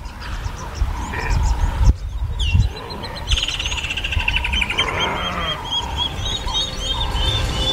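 Wild animal sounds: deep, low calls in repeated bursts, with a bird singing a fast, repeated chirp from about two and a half seconds in.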